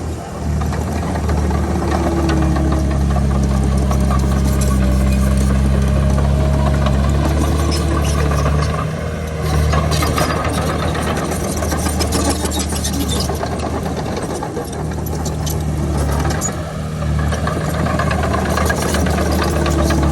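Diesel engine of a Komatsu D31PX crawler bulldozer running steadily under load as it pushes dirt. The engine note shifts slightly now and then, and there are a few metallic clanks midway.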